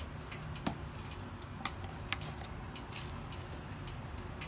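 Scattered light clicks and taps of a plastic oil funnel and oil bottle being handled and set into a motorcycle's oil filler neck, with three sharper clicks in the first half, over a low steady rumble.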